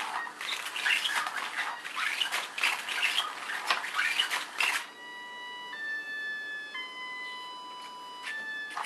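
Nylon cover of a Cat's Meow toy rustling and scratching as its motorised wand sweeps underneath and a cat paws at it. About five seconds in the rustling stops and a short run of held tones follows, stepping in pitch a few times.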